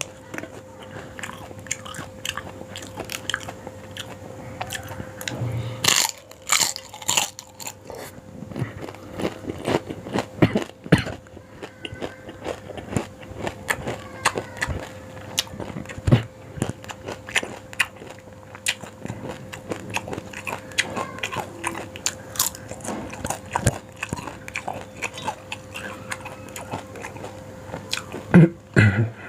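A person biting and chewing yong tau foo, with many sharp wet mouth clicks and crunches. A faint steady hum runs beneath it.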